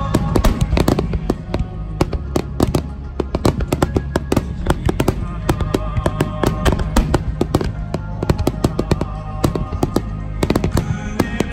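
Aerial fireworks shells bursting in a rapid barrage, dozens of sharp bangs in quick succession, with music playing underneath.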